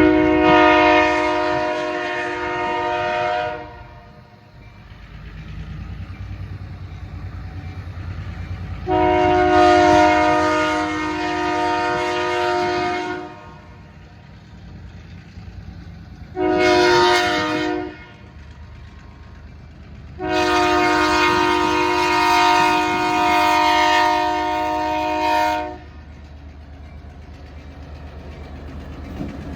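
Diesel locomotive's air horn sounding the grade-crossing signal: two long blasts, a short one, then a final long one, each a steady chord of several notes. Between the blasts the low rumble of the locomotive and its cars on the rails.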